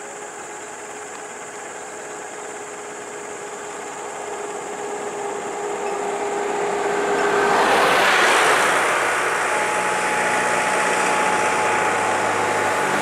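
A motor vehicle approaching, its engine and tyre noise growing steadily louder for several seconds, then its engine running steadily close by.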